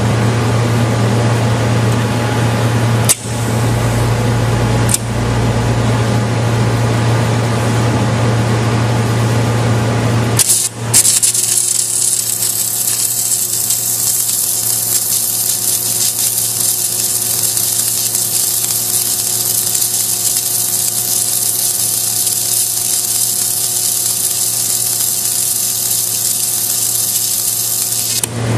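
Submerged arc welding rig: a steady low hum of the welding equipment with two sharp clicks. About ten seconds in, a loud, even hiss starts as flux is laid down and the arc burns under the flux, and it runs on steadily.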